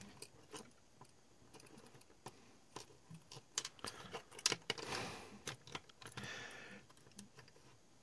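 Faint, irregular small clicks, taps and rustles of fingers handling a 12-volt lighter plug's plastic body, spring and tip cap while trying to fit them back together. There is a short scraping rustle about four and a half seconds in, and another about six seconds in.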